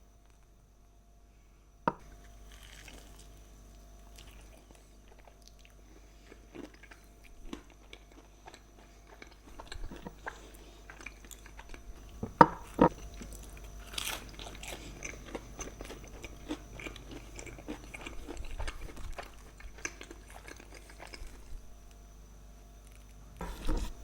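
Close-miked eating: chewing and crunching food, with scattered sharp clicks, the loudest two about halfway through.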